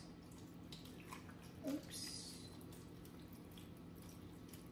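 Broth pouring from a carton into a steel pot of cut potatoes: a faint trickle of liquid.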